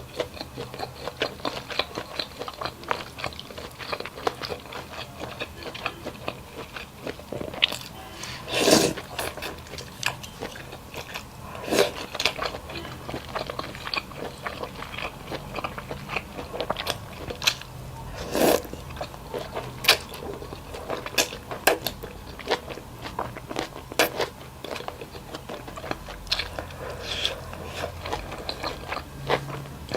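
A person eating close to the microphone: dense chewing and crunching with a few sharper bites.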